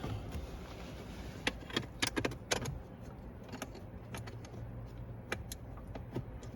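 Scattered light metallic clicks and clinks of hand work with screws and a tool, as a 10 mm bottom screw is started on the speaker pod mounting. The clicks come in a cluster a second or two in, then sparsely.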